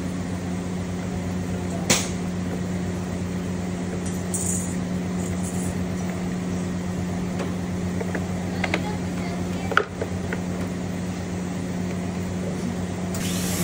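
A steady low machine hum with a few sharp clicks or knocks, one about two seconds in and a couple near the ten-second mark.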